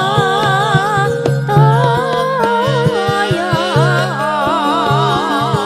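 A female singer (sinden) sings a Javanese campursari langgam with a wavering, ornamented vocal line over a live band, with sustained bass notes and frequent drum strokes underneath.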